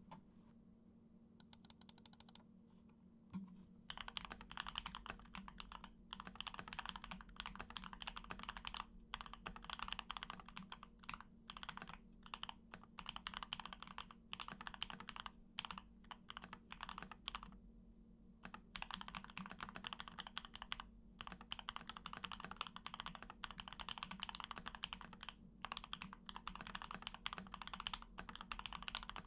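Typing on a Keychron Q1 mechanical keyboard with factory-lubed Gateron Oil King linear switches. A few stray clicks come first, then steady fast typing starts about four seconds in, with a brief pause about a third of the way through and a longer one just past halfway.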